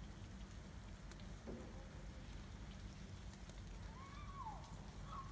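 Faint outdoor background during a snowfall: a steady low rumble with light scattered pattering and ticks. About four seconds in comes one short high call that rises and then falls.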